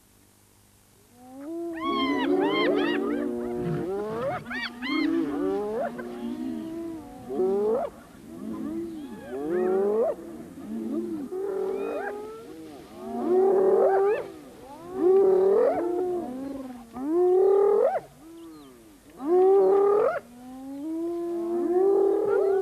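A spotted hyena clan calling in an excited chorus of overlapping, rising-and-falling yells and whoops, mixed with lion growls, as the hyenas mob lionesses off a kill. The calls start after a second or so of quiet and come in loud bouts about every two seconds.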